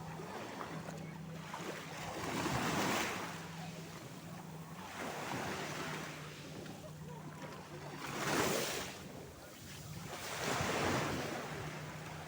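Sea waves surging and washing, four swells of surf rising and falling about every two and a half seconds.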